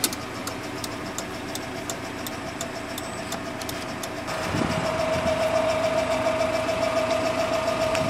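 2.9-litre inline-four, 8-valve petrol engine of a GAZ Gazelle light truck idling steadily, with a light regular ticking over it. The engine gets louder about four seconds in.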